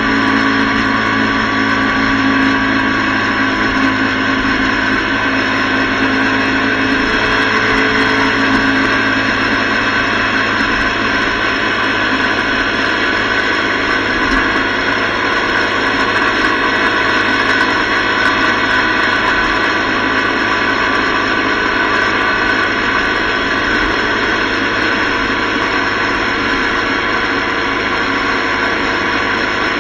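Steady rush of wind buffeting the microphone of an action camera on a motorcycle at highway speed, over the motorcycle engine running at a steady cruise.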